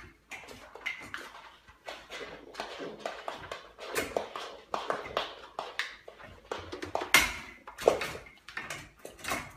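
A young goat's hooves tapping and clattering on a wooden floor and against a metal baby gate as it paws and rears up at the gate, giving irregular sharp knocks with a few louder ones.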